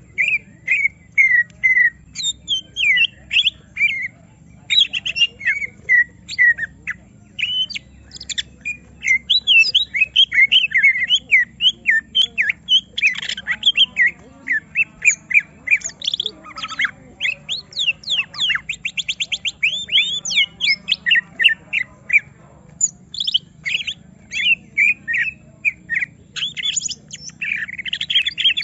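Cucak ijo (green leafbird) singing in agitation after being provoked: a dense, unbroken stream of short, varied whistles and chirps. Midway it breaks into harsh chattering, then into a fast run of rising whistled sweeps, with a brief pause before the chirping resumes.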